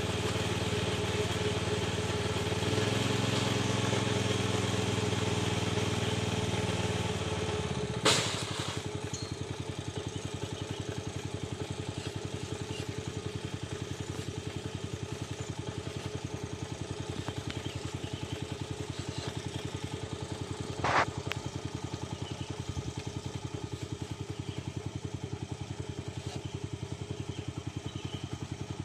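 A small engine running steadily, its sound changing after a sharp click about eight seconds in to a fast even chugging; another sharp click comes about two-thirds of the way through.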